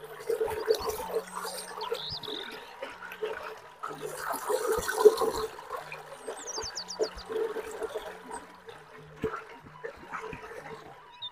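Close-miked wet chewing and lip-smacking of a mouthful of rice and food, a steady run of small moist clicks and squelches.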